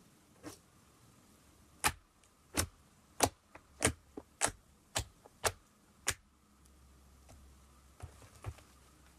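Fluffy slime being pressed and squished by fingers, giving a run of sharp pops and clicks as trapped air pockets burst: about ten, roughly half a second apart, starting about two seconds in, with a few fainter ones before and after.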